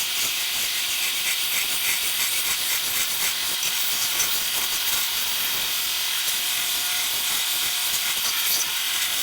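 Belt sander running with a wooden spatula blank pressed against the moving abrasive belt: a steady, hissing grind of sandpaper on wood.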